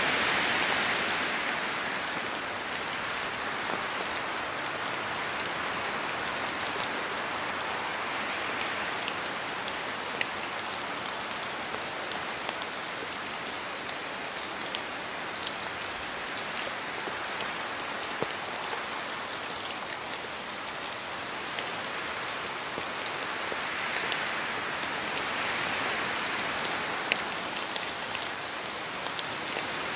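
Steady rain falling, with many small drop ticks over a dense hiss; gusts of wind swell up near the start and again late on.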